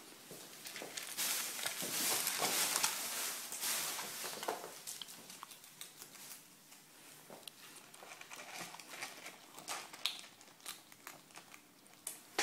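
A pet eating: crinkling, crackling chewing and tearing noises, densest in the first few seconds, then thinning to scattered clicks and taps.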